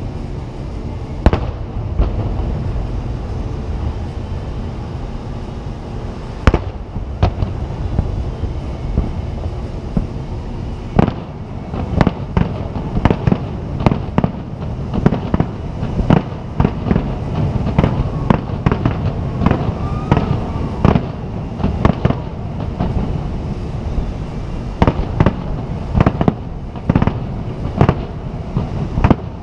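Aerial firework shells bursting: a few separate bangs at first, then a quick, irregular series of bangs from about a third of the way in, over a steady low rumble.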